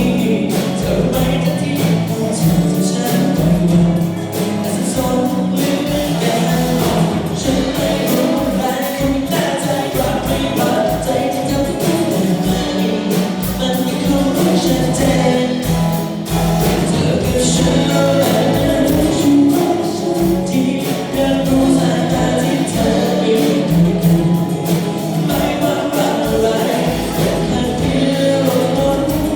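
A band playing a song with singing over it and a steady drum beat.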